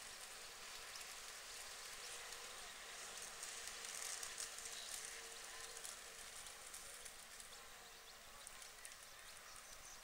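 Faint outdoor ambience: a steady high hiss with scattered faint ticks, a little louder around the middle.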